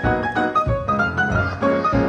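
Keyboard solo: a fast run of many notes over a low bass line.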